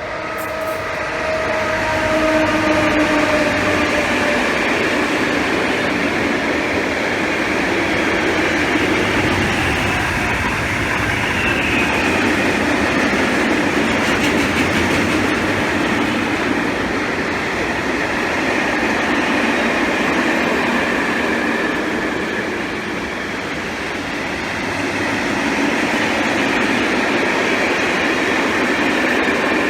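Freight train of grain wagons rolling past steadily, hauled by a Train Hungary class 400 locomotive, with continuous wheel-on-rail noise and some clatter over rail joints. A faint steady tone is heard over the noise for the first few seconds.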